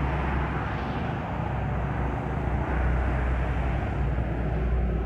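Steady low rumble with an even noisy hiss over it: outdoor background noise, with no single event standing out.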